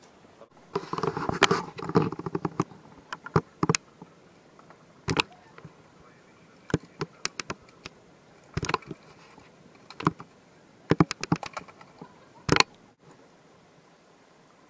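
Irregular sharp clicks and knocks: a dense clatter for about two seconds near the start, then single knocks and short runs of clicks every second or so.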